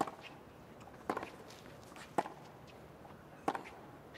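Tennis rally: a tennis ball struck back and forth with rackets, four sharp pops roughly a second apart.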